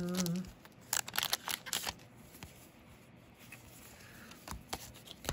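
Trading cards being handled: a cluster of sharp clicks and snaps about a second in, soft rustling, and a few more clicks near the end. A brief hummed voice sound at the very start.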